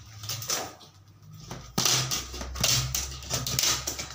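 A run of sharp scraping strokes on a PVC ceiling panel, about two a second, starting about two seconds in.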